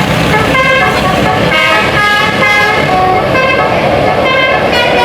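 Telolet musical horn on an Indonesian tour bus playing a quick tune of short notes that change pitch every third to half second, over the low running noise of the bus engine.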